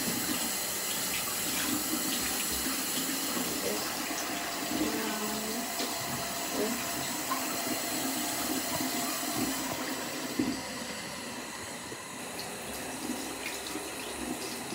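Water running steadily from a bathroom sink faucet into the basin. The rush eases a little about ten seconds in.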